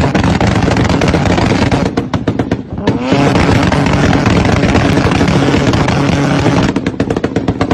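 Mazda RX-7 held on a two-step launch-control rev limiter, the engine buzzing at the limiter while the exhaust pops and crackles rapidly as it shoots flames. About three seconds in the revs dip and then climb again.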